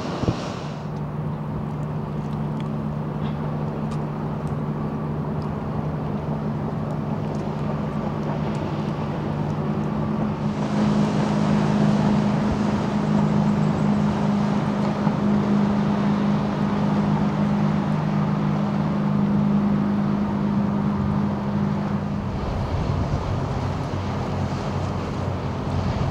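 A small tugboat's diesel engine running steadily under way, a low even hum, with water rushing from its wash. The hiss of water and wind grows louder about ten seconds in.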